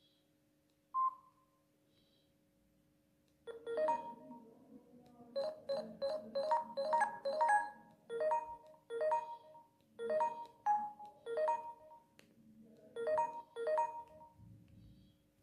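Samsung GT-S3600 mobile phone giving one short beep, then playing one of its built-in polyphonic ringtones through its small speaker: a melody of short notes with quick runs in the middle, which stops about a second before the end.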